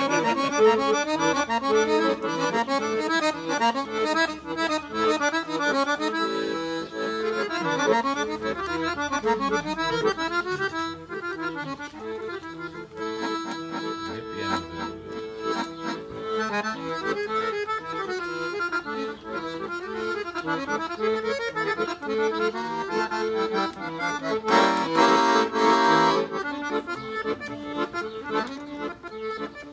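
Piano accordion played solo, a flowing melody of quick notes over chords. It swells louder and brighter for about a second and a half near the end.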